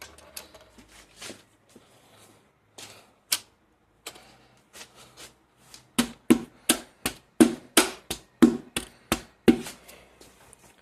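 Light metallic clicks and knocks of transmission parts being handled, then about ten sharp hammer taps, roughly three a second, driving a bearing down onto a tractor transmission shaft.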